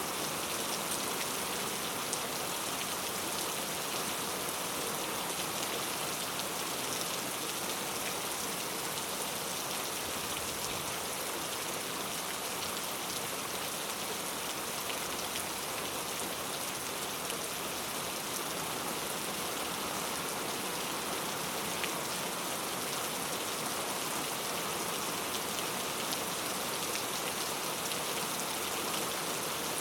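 Heavy rain falling steadily, a dense even hiss with fine pattering of drops on surfaces.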